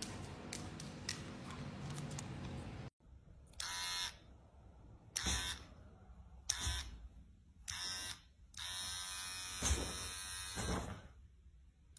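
Electric hair clipper switched on and off in short buzzing bursts, five times, the last burst running about two seconds.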